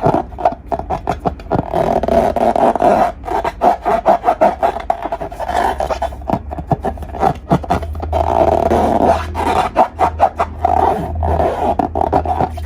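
Slime being squished and worked by hand, with a steady run of sticky crackles and small pops.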